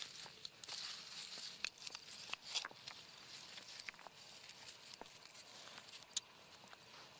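Hands rustling in dry leaf litter and setting stones back onto a small cairn: faint scattered clicks and scrapes over a steady hiss.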